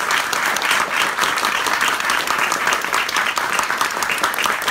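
Audience applauding at the end of a performance: many hands clapping steadily.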